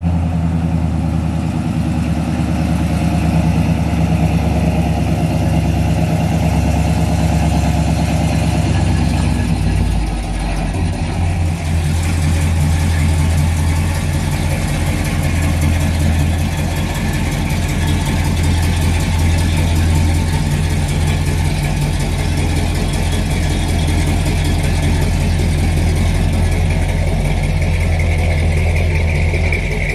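A 1978 Chevrolet K20 pickup's engine running steadily. Its note changes briefly about ten seconds in, then settles into an even idle.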